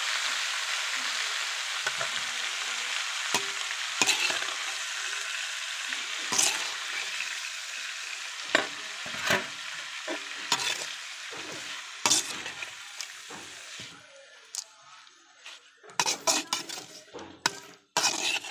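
Chopped amaranth greens sizzling in a frying pan while a metal spoon stirs them, clinking and scraping against the pan. The sizzle dies down about three-quarters of the way through, leaving quicker spoon clinks and scrapes near the end.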